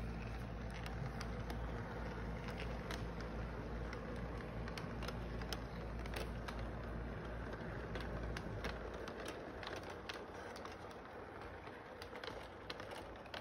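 O gauge model train rolling along its track: a steady low rumble with many quick clicks of wheels over rail joints. The rumble drops away about two-thirds of the way through, leaving the clicks.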